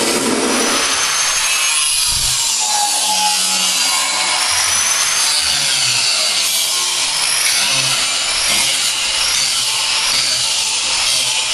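Handheld abrasive cut-off wheel cutting through the steel roof pillars of a 1968 Dodge Charger. It gives a steady, loud grinding noise with a high whine that rises and falls as the wheel bites.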